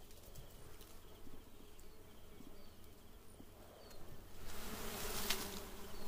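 Dwarf honeybees buzzing around their small open comb, a steady low hum that grows louder about four and a half seconds in as more bees take to the air.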